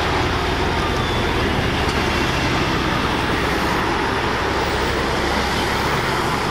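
Scania semi-truck hauling a shipping container driving past: steady diesel engine and tyre noise on the road.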